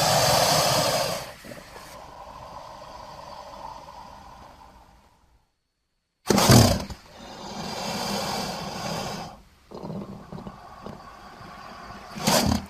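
Crocodile growls and roars used as a creature sound effect, in two separate takes split by about a second of silence. Each starts loud and trails off into a quieter, rasping growl. The second ends with a short loud burst.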